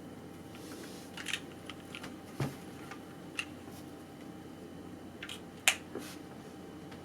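Scattered single keystrokes on a custom mechanical keyboard with lubed light tactile switches (Cherry-top Durocks) on a polycarbonate plate: about eight separate clicks, one near the middle with a deeper thump and the sharpest one late on.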